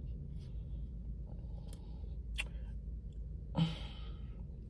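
A person chewing a mouthful of a tortilla-style wrap with closed lips, with a few faint wet mouth clicks and a brief hummed murmur about three and a half seconds in, over a steady low hum inside a car cabin.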